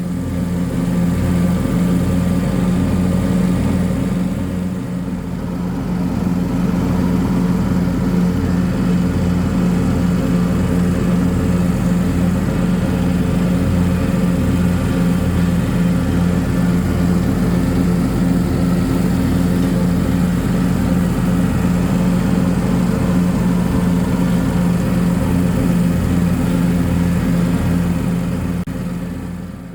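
Lawn mower engine running steadily and loud while mowing grass, with an even fast pulse and a slight dip about five seconds in.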